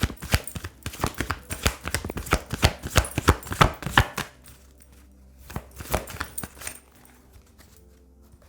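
A deck of oracle cards being shuffled by hand: a fast run of card slaps and flicks that stops about four seconds in, followed by a few lighter taps around six seconds.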